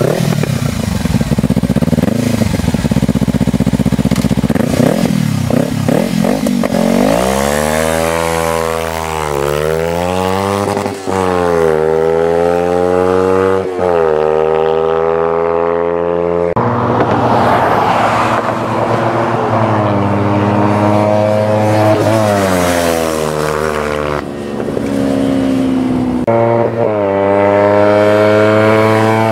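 2013 Kawasaki Ninja 300's parallel-twin engine accelerating hard through the gears. Its pitch climbs and then drops suddenly at each upshift, several times over.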